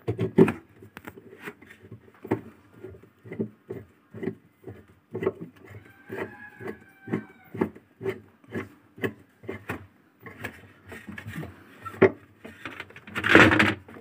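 Hand ratchet wrench tightening the spin-tub mounting bolts on a top-loading washing machine's drive hub: a string of short metallic clicks and knocks, about two a second, as the handle is worked back and forth. A louder scraping rustle comes near the end.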